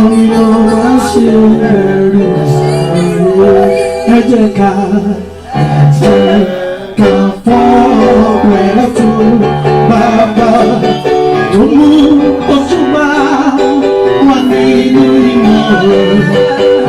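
Loud music with singing and guitar, with a brief drop in level about five seconds in.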